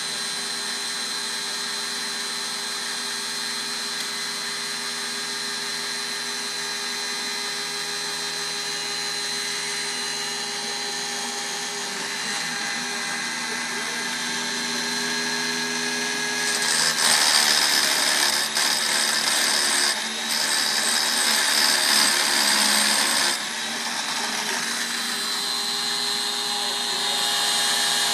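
Electric chainsaw-chain grinder motor running steadily. About two-thirds of the way through, the grinding wheel is brought down onto a cutter tooth for several seconds of louder, harsh grinding in short passes, then it lifts off and the motor runs on alone.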